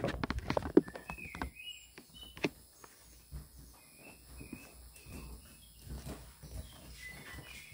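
Footsteps and light knocks on a wooden floor, most of them in the first couple of seconds, with short high chirps now and then.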